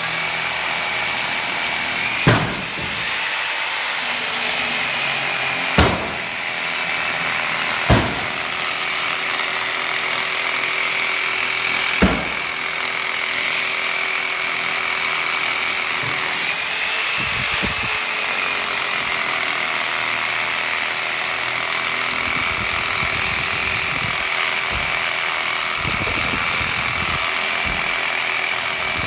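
DeWalt angle grinder running steadily while cutting through steel rebar, with a high whine that rises in pitch twice, about two seconds in and again around sixteen seconds, as the disc eases off the cut. Four sharp knocks come in the first twelve seconds.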